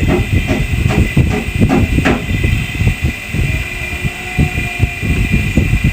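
Refrigerator hermetic compressor running with a low, uneven rumble while its suction line draws compressor oil in from a bottle through a tube.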